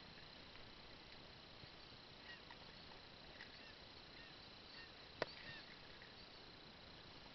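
Near silence: a faint steady hiss with a thin high whine, a few faint short chirps, and one sharp click about five seconds in.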